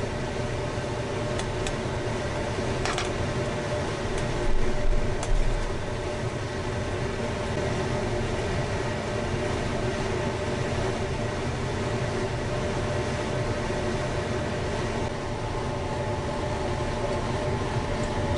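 Fish broth bubbling at a rapid simmer in a pot, over a steady mechanical hum. A couple of low bumps come about four to five seconds in.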